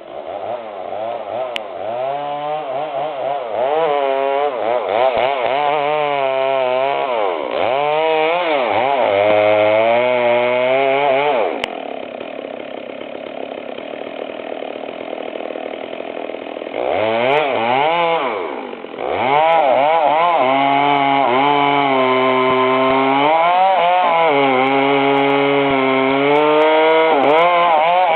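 Chainsaw running, its engine pitch swooping up and down repeatedly. About twelve seconds in it drops to a quieter stretch of several seconds, then settles into a steady high-revving run over the last third.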